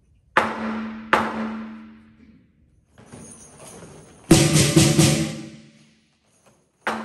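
Lion dance percussion of drum, cymbals and gong playing sparse accented strikes. Two crashes come less than a second apart with a ringing tone under them. About four seconds in, a fuller, louder ensemble hit rings away over a second or two.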